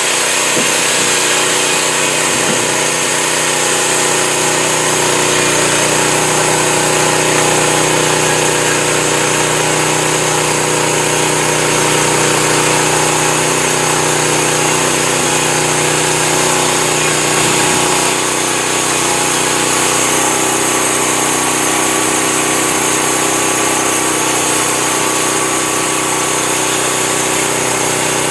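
Home-built band sawmill running steadily under its engine, a constant mechanical drone. The pitch and level drop slightly about eighteen seconds in.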